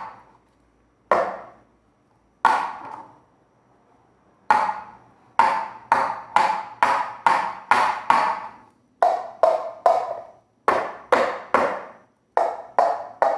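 Plastic cups knocked on a tabletop. First come three single knocks a second or so apart, each with a short ring. From about four seconds in, a quick even rhythm of knocks follows, about two or three a second, some lower in pitch than others.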